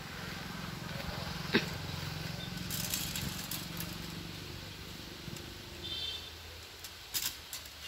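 A low steady hum that fades out about six seconds in. A sharp click early on, then a few short metallic clatters near the end as the steel frame of a coconut tree-climbing device is handled at the trunk.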